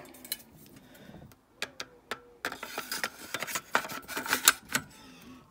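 Metal parts of a Dickinson Commando 12-gauge shotgun clicking and scraping as the bolt and barrel are slid back into the receiver during reassembly: a few light clicks about a second and a half in, then a busy run of sharp clicks and rattles.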